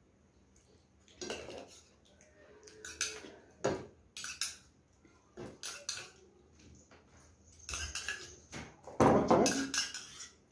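A metal spoon scraping and clinking in a small bowl as the last of the curd is scooped out, with tableware knocked and handled between strokes; a louder run of scrapes and clinks comes near the end.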